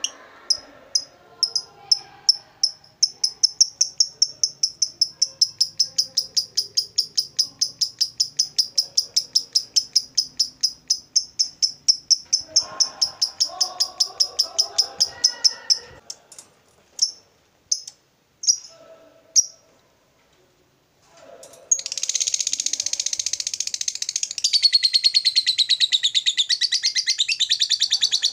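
Fischer's lovebird giving its long 'ngekek' chatter: a rapid run of sharp high chirps that speeds up for about fifteen seconds, then breaks into a few single chirps. After a short pause a louder, dense, unbroken chattering starts and runs on.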